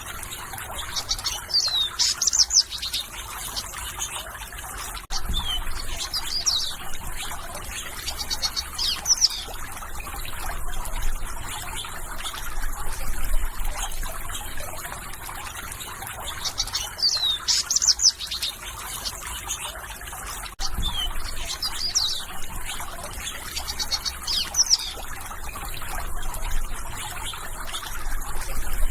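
Songbirds chirping and twittering in short bursts of quick, high, sweeping notes, over the steady trickle of running water. The bird phrases come in clusters, with gaps of a few seconds between them.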